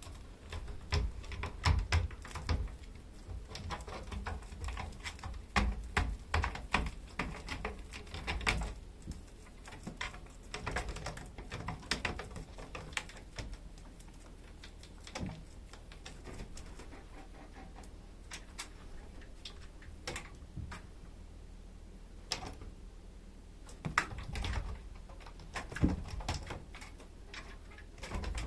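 Kittens moving about and playing: irregular light taps, clicks and small knocks in bunches, with a quieter stretch in the middle.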